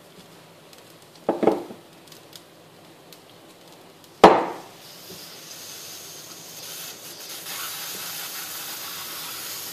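Stainless steel cookware of a couscoussier handled: a clatter about a second in, then a sharp, ringing metal clang a few seconds later. After the clang a hiss of steam from the pot of boiling water grows steadily louder.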